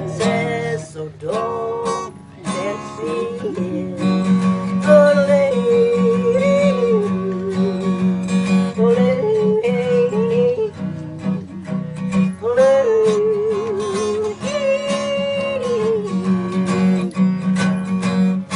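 An elderly woman yodeling a wordless, leaping melody to strummed acoustic guitar.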